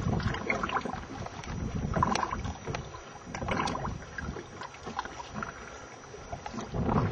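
Water sloshing and slapping against the hull of a small boat drifting with its engine off, out of fuel, with wind buffeting the microphone. Louder surges about two and three and a half seconds in.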